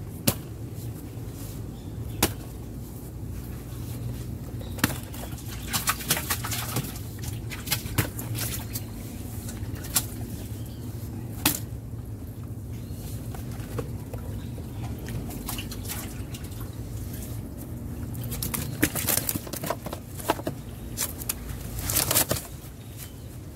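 Water splashing and dripping as a hand dips and sloshes in the water beside a wooden canoe, with scattered sharp knocks and taps. The knocks bunch together about six seconds in and again near the end.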